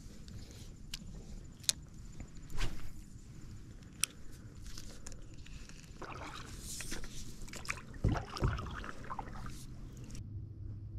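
Scattered knocks and clunks of fishing gear and a canoe paddle against the canoe hull, with a little water sloshing; two heavier thumps come about eight seconds in.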